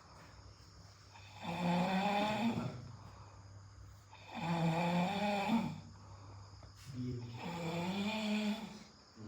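A person snoring in a steady rhythm: three long snores, one about every three seconds, each lasting about a second and a half, with quieter breathing gaps between.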